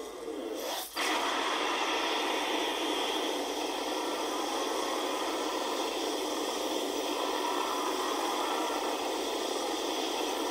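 A Godzilla sound effect: a steady, rushing hiss that starts about a second in, just after a brief rising sweep, and holds even with no pitch or rhythm.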